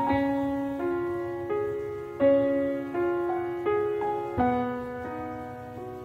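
Background piano music: a slow melody with a new note struck about every 0.7 seconds, each ringing away, growing quieter near the end.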